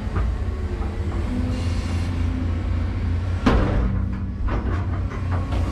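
Excavator engine running steadily, heard from inside the cab, with a brief hydraulic whine as the controls are worked. A single loud sharp bang about three and a half seconds in, followed by a few lighter knocks.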